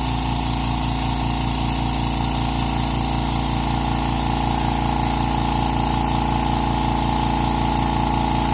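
California Air Tools 2010A oil-free air compressor running steadily while it fills its tank, heard close to the air intake, where most of its noise comes from. It is a steady hum with a fast, even pulsing.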